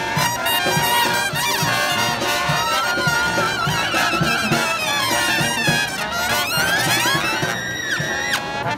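Upbeat instrumental music led by brass, with a steady beat.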